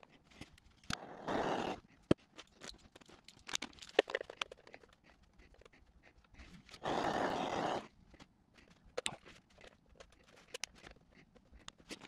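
Wax crayons clicking and tapping against each other and against a metal bowl as they are packed upright around its inside. Two scraping rustles, each about a second long, come about a second in and about seven seconds in.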